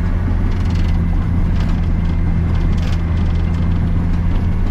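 Cat D7 Next Gen bulldozer's diesel engine running steadily, heard from the operator's cab as a constant low drone, with light scattered clicks and rattles over it.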